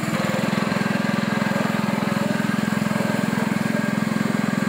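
Small motorboat's engine running steadily at an even speed, a fast, regular chugging.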